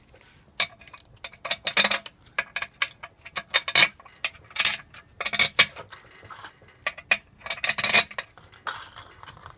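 Small steel bolts clinking in the hand and dropping into the bolt holes around the aluminium case of a Honda S2000 AP2 transmission, an irregular string of sharp metallic clinks.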